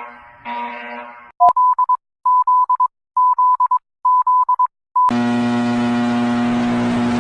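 Emergency-alert-style electronic tones: a buzzy pitched tone, then about a second and a half in, rapid clusters of short high beeps in four groups, then about five seconds in a loud, harsh, steady buzzing alarm tone starts and holds.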